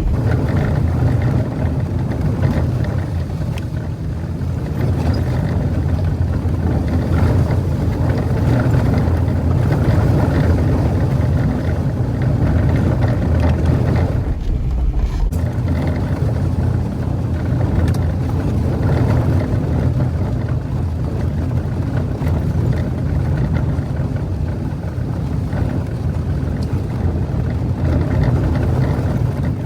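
Jeep Wrangler driving slowly up a dirt trail: a steady low engine rumble with tyre and road noise, with a short change in the low end about halfway through.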